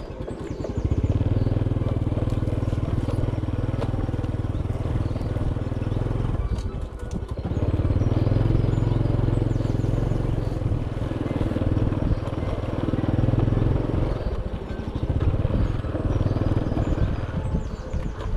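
Small step-through motorcycle engine running under throttle on a rough dirt trail. The engine note eases off for a moment about seven seconds in, then picks up again, with a few knocks from the bike over the bumps.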